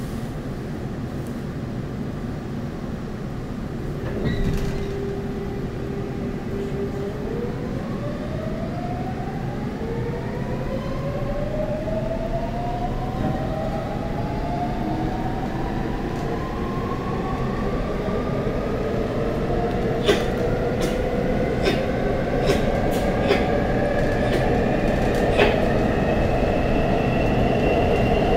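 Seoul Metro Line 4 subway train accelerating: a steady rumble with the traction motors' whine rising slowly in several tones as it picks up speed. A few sharp clicks come in the second half.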